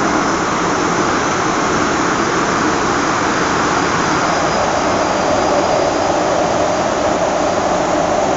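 Steady interior drone of a first-generation MTR M-Train car standing in service: its ventilation and auxiliary machinery run continuously, with a faint high whine above. A lower hum in the mix swells slightly in the second half.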